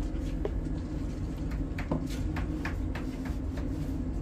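Steady low hum with a quick run of light clicks and taps from about one and a half seconds in, from dogs moving about on a hard floor around metal food bowls.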